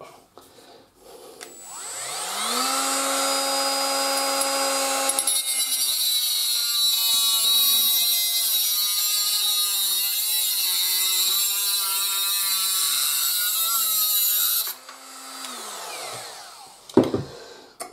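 Cordless Parkside angle grinder with a cutting disc spinning up and running free, then cutting through a flat steel bar held in a bench vise for about nine seconds, the motor pitch dropping and wavering under load with a harsh grinding of metal. It lifts free, speeds up briefly and spins down, followed by a knock near the end as the grinder is set down.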